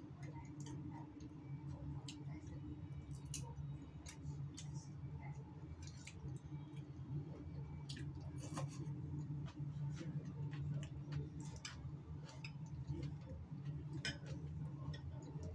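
Someone eating from a bowl: a metal spoon clicking and scraping against the ceramic bowl, with mouth and chewing clicks, scattered through, over a steady low hum.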